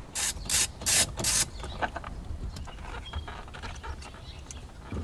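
Hand work on a Mustang's original steering wheel during its removal. Four short rasping bursts come in quick succession in the first second and a half, followed by scattered light clicks of tools and plastic parts being handled.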